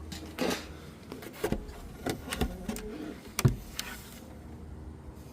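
A string of knocks and clicks from hands working the nest boxes and handling eggs, with a short rustle about half a second in and the sharpest knock about three and a half seconds in, over a steady low hum.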